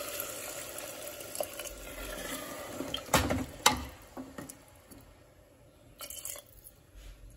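Water poured from a bowl into a pressure cooker of potato curry, splashing into the liquid for about three seconds. Two sharp knocks follow, and a second, shorter pour comes about six seconds in.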